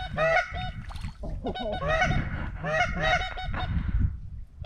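Geese honking: clusters of short, rising-and-falling honks, several overlapping at once, with low wind rumble on the microphone.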